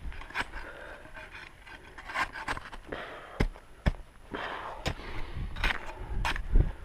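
A winter climber's crampons and ice axe biting into snow and ice: irregular sharp crunching strikes, roughly one a second, with scraping and hard breathing between them.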